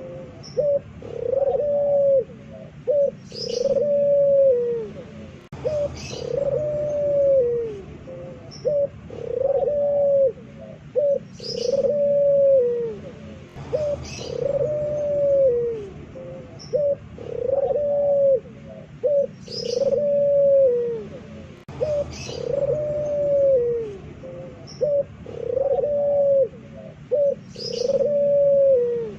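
Puter pelung (Barbary dove) cooing loudly in a repeating phrase about every two and a half seconds. Each phrase is a short note or two, then a long drawn-out coo that arches and falls. Faint high chirps of small birds come in between.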